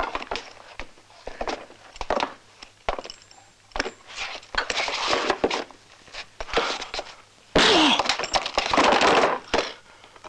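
Fistfight sound effects: scuffling and scattered knocks and thuds of blows. Several louder noisy bursts of struggle come through, the loudest about three-quarters of the way in.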